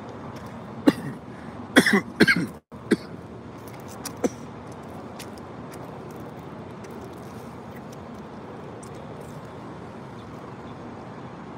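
Steady outdoor background noise, an even hiss with no distinct source. It is broken in the first few seconds by several short, sharp, loud sounds, the loudest cluster about two seconds in.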